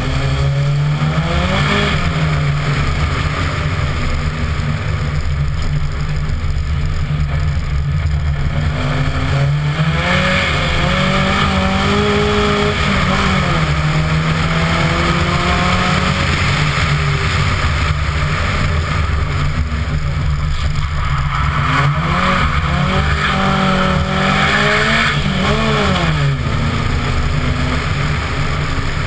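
Vauxhall race car's engine at speed, heard from a camera mounted on the outside of the body, its pitch rising and falling over and over as it accelerates and eases off, over a steady rushing noise.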